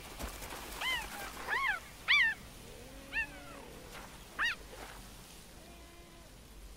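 Male cheetahs calling during a territorial standoff: about five short, high cries, each rising and falling in pitch, in the first four and a half seconds, with a couple of lower, drawn-out moaning calls between them.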